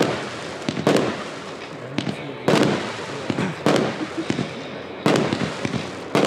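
A Jorge Pterodaktyl 121-shot fireworks cake of mixed 20 to 48 mm calibres firing shot after shot: about six sharp bangs, one every second or so, each trailing off, with smaller pops and crackle between them.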